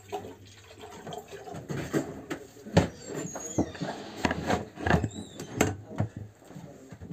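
Handling noise of an electric kettle being readied: a run of clicks and knocks as the lid is shut and the kettle set down, the sharpest knock about three seconds in, with a few short high squeaks.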